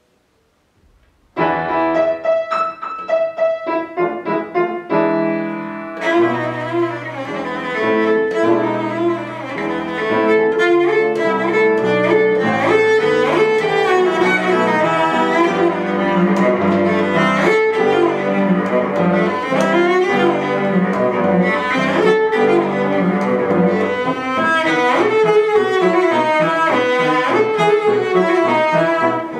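A cello and a grand piano playing a classical piece together. The music starts suddenly about a second and a half in, after a brief silence, and grows fuller about six seconds in.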